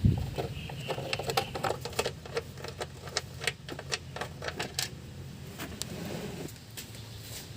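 Irregular metallic clicks and taps of hand tools working on parts of an engine being dismantled, over a steady low hum.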